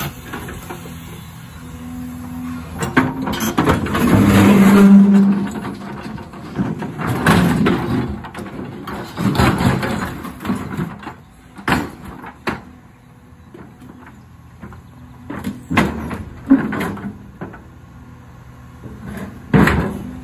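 Caterpillar excavator engine running as the steel bucket scrapes and crunches against a concrete slab, in several long grinding passes with the loudest about four seconds in. Several sharp knocks of steel on concrete follow in the second half.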